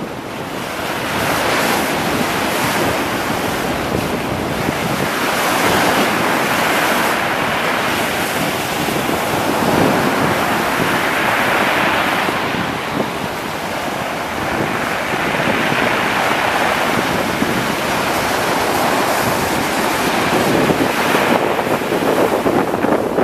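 Rough sea waves breaking and washing up a pebble beach, surging about every four to five seconds, with wind buffeting the microphone.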